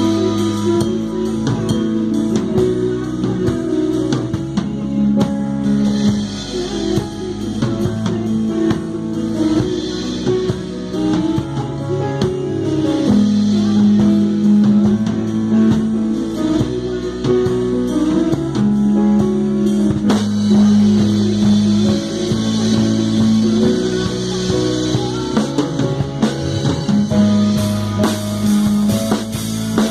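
A live band playing a rock-style song: drum kit and electric guitars over bass and keyboard, in a steady groove.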